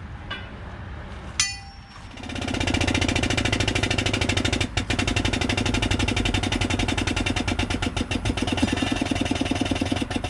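A machine starts up about two seconds in and runs steadily with a rapid, even knocking pulse.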